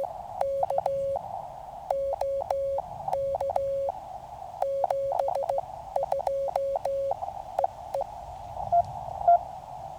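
Morse code from a QCX mini CW transceiver: a single-pitch tone keyed into dots and dashes over receiver hiss, with a click at each on and off. The sending stops about seven seconds in, leaving band noise and a couple of faint blips.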